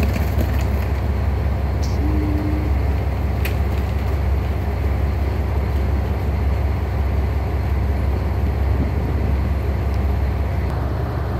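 Diesel railcars idling at the platform, a steady low rumble, with a short faint tone about two seconds in.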